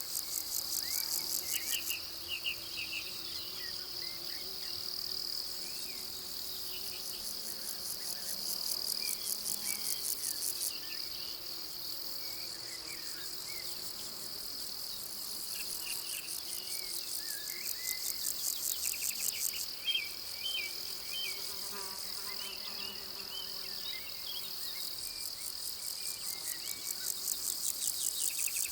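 Summer meadow insects chirring: a steady high-pitched trill, with louder pulsed buzzing phrases of two or three seconds that come back about every eight seconds. Faint bird chirps sit underneath.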